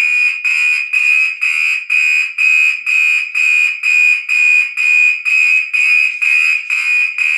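Gentex SHG fire alarm horn sounding loudly in march time: about two sharp, high-pitched beeps a second, evenly spaced. Its continuous-tone setting is broken, so it runs only on the march-time pattern.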